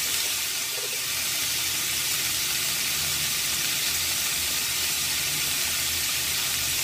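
Raw chicken pieces sizzling steadily in butter in a nonstick frying pan.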